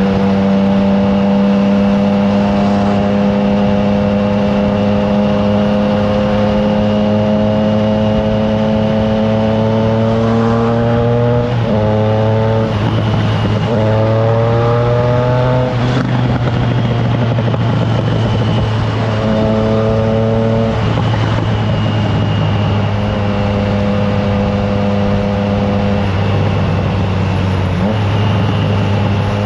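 Triumph Trident 660's inline three-cylinder engine through an aftermarket FireTong exhaust, heard from the moving bike with wind noise. The engine note climbs slowly, then drops and rises again twice around the middle, and settles to a steady cruise.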